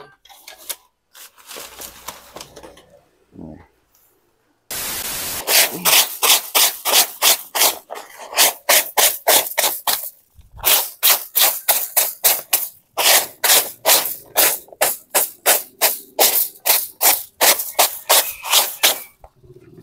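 Short hand broom swept briskly across a tarpaulin tent groundsheet to brush it clean, in rapid scratchy strokes about three a second, with a brief break about halfway through. Quieter rustling of gear comes before the sweeping starts, about five seconds in.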